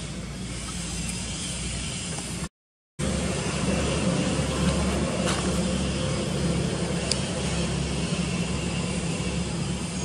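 Steady low rumble of outdoor background noise, like distant engine traffic, with an even hiss over it. It drops out to dead silence for about half a second some two and a half seconds in, then comes back a little louder, with a couple of faint clicks.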